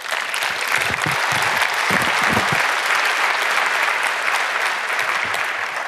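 Audience applauding, a large crowd clapping steadily in a big hall, fading out near the end.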